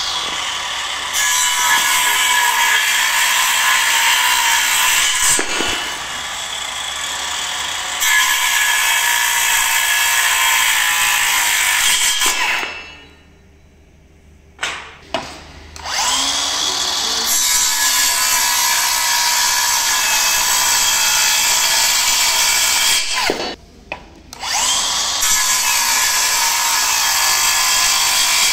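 Milwaukee M18 Fuel (2730-20 / CCS55) brushless cordless circular saw running and cutting through wood, a steady whine under load. It stops for a few seconds about halfway through, then starts again for more cuts, with another short break near the end.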